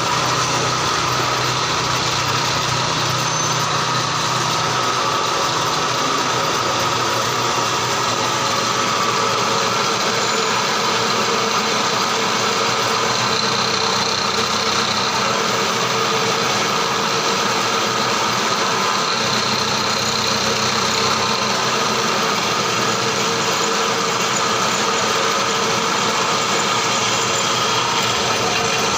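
Electric drilling machine running steadily while drilling a hole in a clamped metal job, with a low hum that fades about five seconds in.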